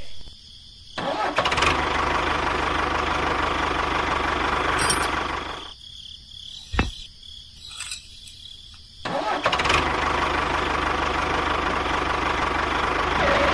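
Tractor engine running for about five seconds, dropping away near the middle with a single sharp click in the pause, then running again.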